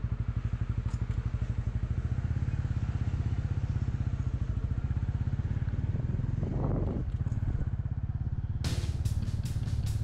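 Motorcycle engine, just started, running steadily at idle with an even, rapid beat. Near the end, background music with guitar and drums comes in over it.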